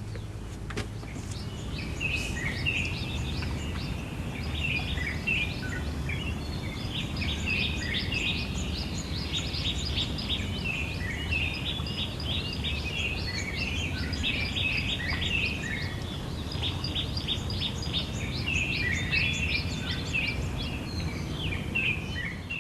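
A chorus of many birds calling, dense short chirps and whistles, over a steady low rumble from distant boat engines.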